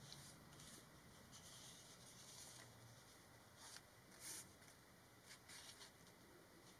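Faint rustling and brushing of a comic book's paper cover as it is turned over by hand and smoothed flat on a board. There are a few short soft swishes, the clearest a little past the middle.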